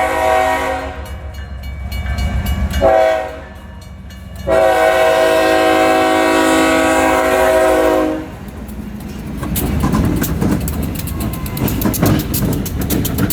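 Locomotive air horn blowing at a grade crossing: a blast ending about a second in, a short blast near three seconds, and a long blast from about four and a half to eight seconds. Then the train rolls past with a rumble and rapid clicking of wheels over the rail joints.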